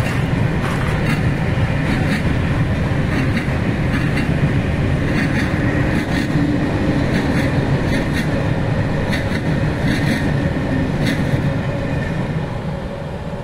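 VR freight train of covered wagons rolling past: a steady rumble with irregular clicks of the wheels over the rail joints, easing off near the end as the last wagons go by.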